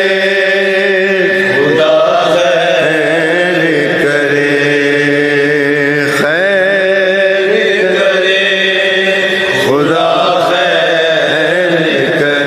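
A chorus of men's voices chanting long held notes in unison, the backing of a noha (Shia mourning lament), with the pitch moving to a new note every few seconds.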